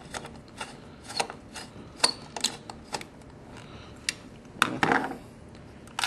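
Stiff copper wires being worked into the terminal screws of a 240 V dryer receptacle: irregular small metallic clicks and taps, with a brief scraping rustle about five seconds in.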